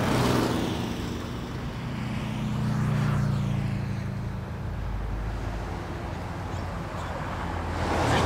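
City street traffic: cars driving past one after another, each swelling up and fading away, about three passes, over a steady low engine hum.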